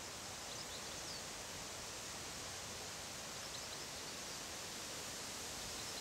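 Steady outdoor background hiss, with a few faint, short high chirps about a second in, around the middle and near the end.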